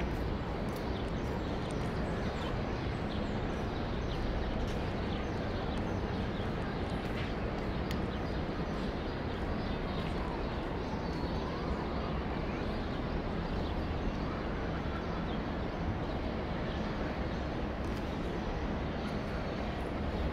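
Steady outdoor city background noise: a low, even rumble of distant traffic and urban hum, with faint small chirps and ticks scattered through it.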